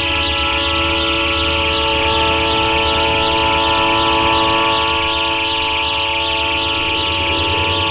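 Diesel locomotive air horn sounding one long, steady multi-note chord, with a regular low pulsing underneath, from a vintage vinyl railroad recording.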